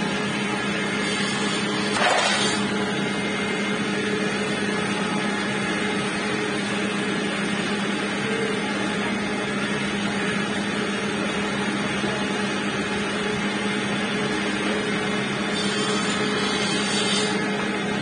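An electric motor driving a belt-linked sanding drum runs with a steady hum. About two seconds in, a wooden strip grinding against the drum gives a short, loud rasp, and there is a fainter scrape near the end.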